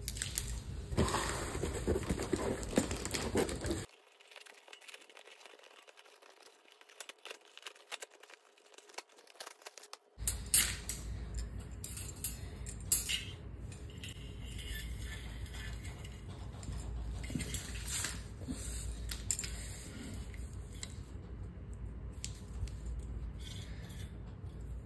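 Handling noise: rubbing and rustling against a cardboard box for the first few seconds, then, after a quieter stretch, light metallic clinks and rattles from a stainless steel wire plate rack being handled, with sharper clinks now and then.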